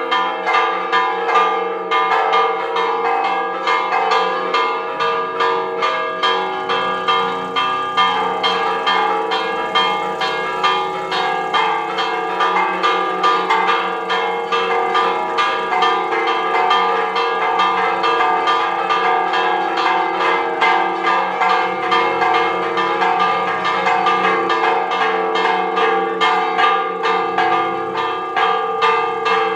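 Church tower bells ringing a fast repique, the clappers striking several times a second in a steady, even rhythm while the bells' tones ring on together.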